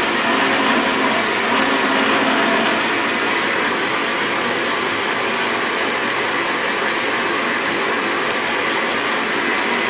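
Weiss-built DroPros WBL290F metal lathe running steadily, its spindle and gear train turning with the lead screw engaged to power-feed the carriage.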